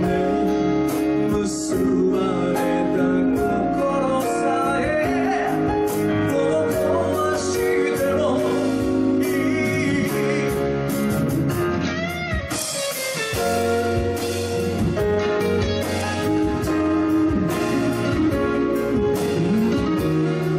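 Male vocalist singing a slow pop ballad live over a band of guitar, bass, percussion and keyboards.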